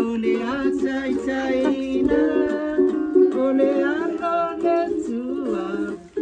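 Ukulele music with a voice singing along.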